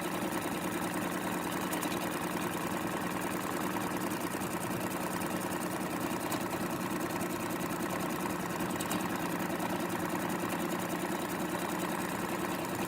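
Sewing machine running steadily at speed, stitching quickly while free-motion quilting a stippling pattern.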